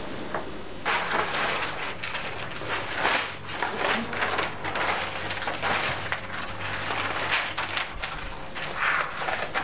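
Loose sheets of paper rustling and crackling as they are rifled through and tossed about on a table, a busy run of rustles starting about a second in.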